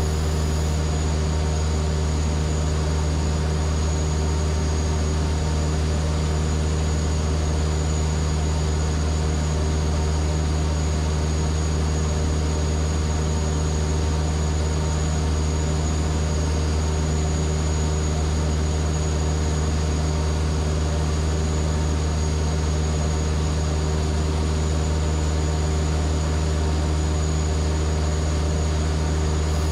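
Steady drone of a Van's RV-7A's piston engine and propeller in flight, heard inside the cockpit, unchanging in pitch and level.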